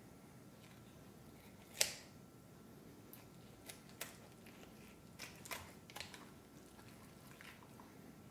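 Faint, scattered clicks and soft wet squishes of a knife and hands trimming bones out of a raw turkey, with one sharper click about two seconds in.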